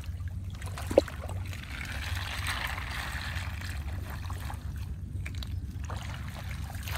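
Water sloshing and trickling as a wet ring trap net is hauled up and gathered through shallow floodwater, with one short sharp sound about a second in.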